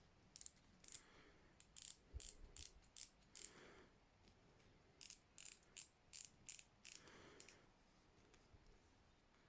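Penn Fathom II multiplier reel's mechanism clicking as it is worked by hand: a run of sharp ratchet clicks, a pause of about a second and a half, then a second run.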